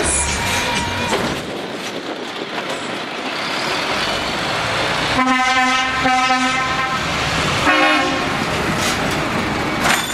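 Heavy trucks' diesel engines running as they pull away, with a truck air horn blown in short blasts about five seconds in and once more near eight seconds; the horn blasts are the loudest sounds.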